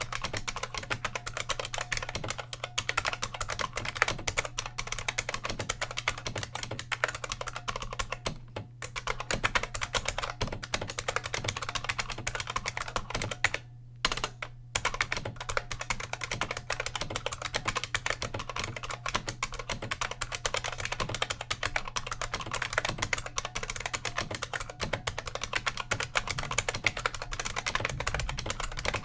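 IBM Model M buckling-spring keyboard, bolt-modded, typed on steadily: a fast run of crisp spring clicks and key clacks, pausing briefly twice near the middle.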